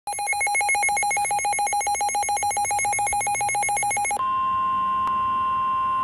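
NOAA weather radio sounding a severe thunderstorm warning alert. The receiver's electronic alarm beeps rapidly, about ten buzzy beeps a second. About four seconds in, it gives way to the steady 1050 Hz warning alarm tone, which signals that a warning message is about to be read.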